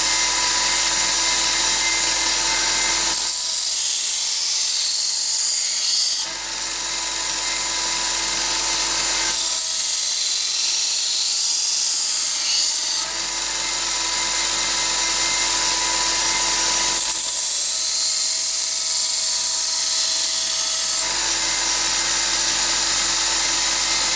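Electric knife sharpener running steadily with a whining motor and a grinding hiss. Three times, for a few seconds each, the sound thins and changes as a knife blade is drawn across it.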